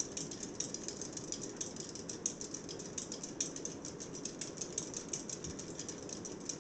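52-inch Hunter ceiling fan running steadily on its fastest speed, the only one that still works, with a faint whoosh and a quick, continuous light ticking.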